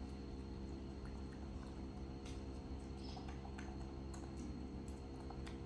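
Faint ticks and small squishy crackles of a small orange's peel being pulled off by hand, over a steady low hum.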